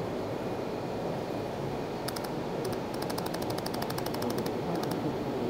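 Pulsed laser welder firing on a P20 steel mold: from about two seconds in, runs of sharp ticks at about ten a second, one per laser pulse, starting and stopping, over a steady machine hum.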